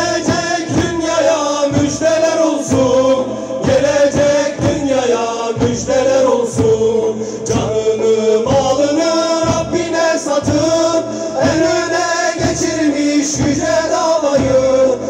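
Male vocal group singing a Turkish Islamic hymn (ezgi) together, accompanied by a frame drum keeping a steady beat.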